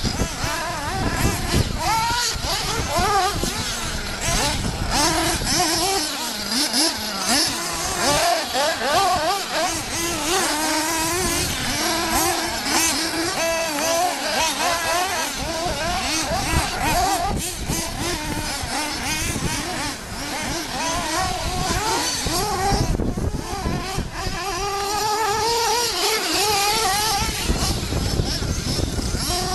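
Two Thunder Tiger ST-1 radio-controlled stadium trucks running, their engines revving up and down constantly as they are driven hard across grass and dirt.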